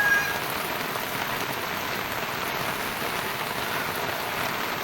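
Steady rain falling, a continuous even patter with no break.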